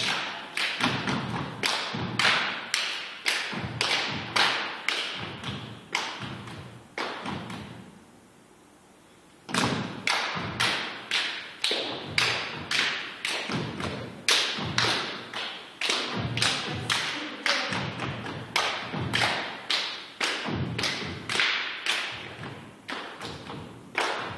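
Dancers' feet stamping and stepping on a wooden studio floor in time, a steady rhythm of thumps and taps about two or three a second. The rhythm stops for about a second and a half after eight seconds, then starts again.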